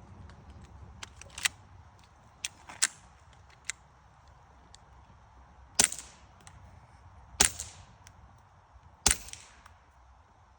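Suppressed .22 LR firearm firing CCI subsonic rounds through a 3D-printed PLA plastic suppressor. Three sharp, fairly quiet shots come about a second and a half apart in the second half, each with a short ring after. Lighter clicks are heard in the first few seconds.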